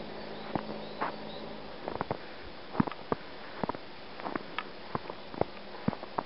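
Footsteps crunching in snow: sharp, irregular crunches a few times a second.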